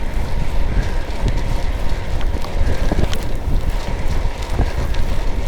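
Wind buffeting the microphone: a heavy, fluttering low rumble with a few faint clicks.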